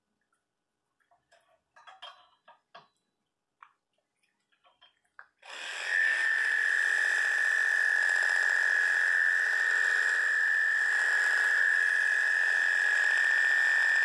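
Corded electric grooming clippers switch on about five seconds in and run with a steady high-pitched buzz as they trim the hair over a small dog's eyes and snout. Before that there are only a few faint handling clicks.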